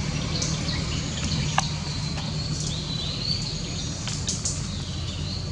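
Outdoor ambience of birds giving short chirping calls over a steady low hum, with one sharp click about a second and a half in.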